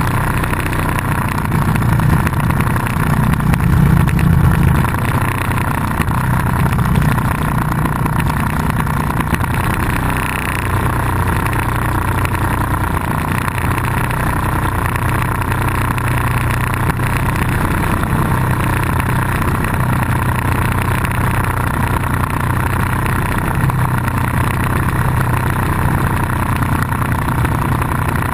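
The engine of a radio-controlled Piper scale model airplane idling steadily on the ground, heard close up from on board, a little louder about three to five seconds in.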